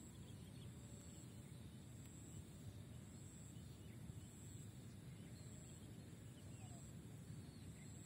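Near silence: faint open-air ambience with a steady low rumble, a few faint high chirps and a faint high tone pulsing about once a second.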